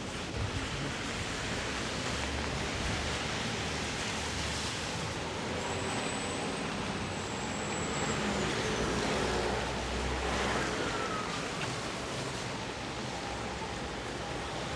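Pouring rain and city street traffic making a steady hiss. Around the middle, a faint high whine holds briefly, then slides down in pitch.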